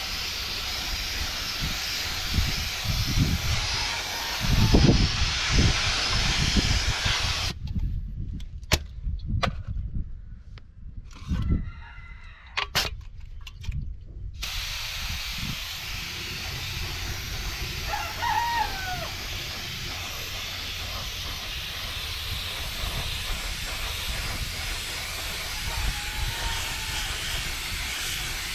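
Compressed-air paint spray gun hissing steadily as it sprays, with some low thumps in the first few seconds. The hiss stops for several seconds in the middle, leaving a few clicks and knocks, then starts again. A rooster crows once, briefly, about two thirds of the way through.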